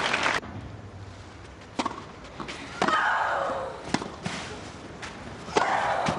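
Tennis rally: racket strikes and ball bounces about a second apart, with a long, falling shriek from a player on two of the shots. Applause stops at the very start.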